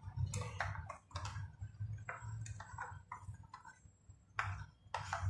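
Metal spoon stirring a liquid in a bowl, clinking against the bowl's side in a string of irregular light clicks, over a low steady hum.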